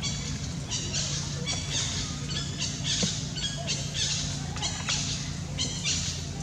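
Short, high, buzzy animal calls repeating about twice a second, over a steady low hum.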